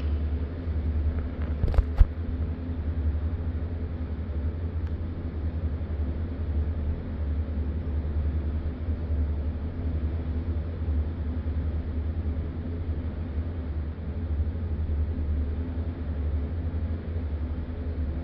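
Steady low hum of an indoor pool hall, the even drone of its background machinery, with two short clicks about two seconds in.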